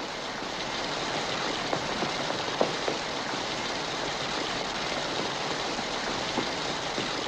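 Steady rain pouring down, with a few sharp taps of drops standing out.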